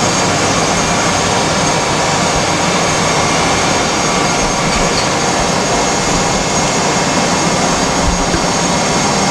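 Steady, loud rushing background noise of a machine shop, even and unbroken throughout.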